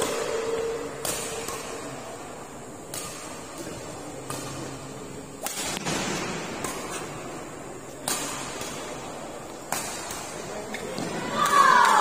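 Badminton rackets striking a shuttlecock in a doubles rally, a sharp smack every two seconds or so. Near the end comes a burst of shouting and cheering as the rally ends.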